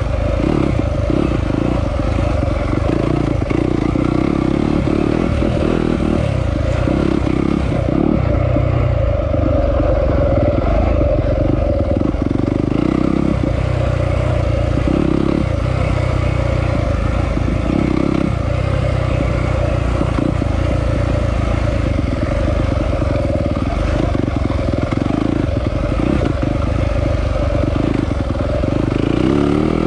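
Yamaha off-road motorcycle engine being ridden hard, the revs constantly rising and falling with the throttle, with clatter over rough ground.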